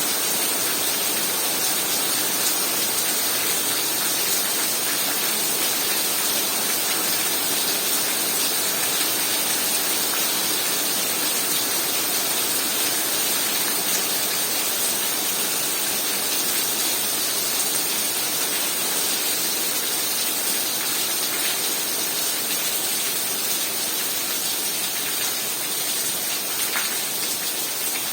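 Heavy rain falling in a steady, even hiss of countless drops on surfaces.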